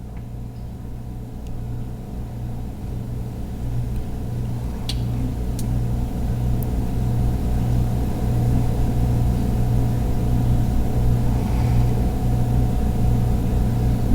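Steady low machine hum that grows gradually louder, with a couple of faint clicks about five seconds in.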